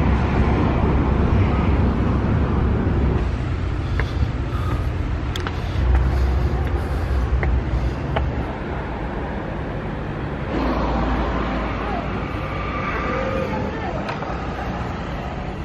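Street ambience: traffic running past with a steady low rumble, changing abruptly twice. Faint voices in the background near the end.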